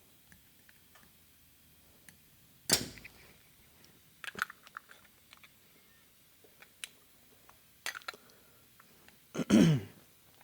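Light clicks and taps of small carburetor parts being handled and fitted together, with two louder sharp sounds, one about three seconds in and one near the end.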